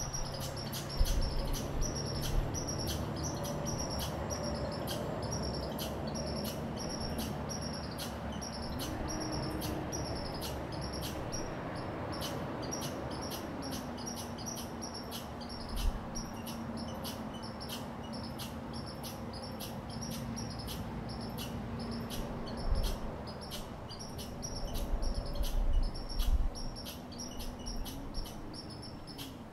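Eastern chipmunk chip calls, repeated steadily at about two to three sharp high chips a second, over a low background rumble.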